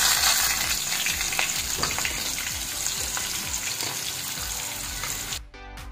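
Chopped onions sizzling in hot oil in a kadhai, freshly added, the sizzle slowly dying down as they fry. Background music cuts in near the end.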